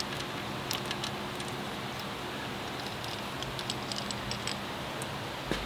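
Faint, scattered light metallic clicks and rattles of a timing chain and tensioner being handled as they come off the engine, over a steady background hiss, with a soft knock near the end.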